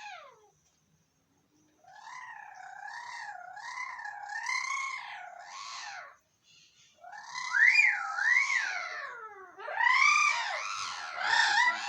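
Pet parrots calling: a long warbling call that wavers up and down in pitch starts about two seconds in, followed by louder swooping calls, with the loudest calls overlapping near the end.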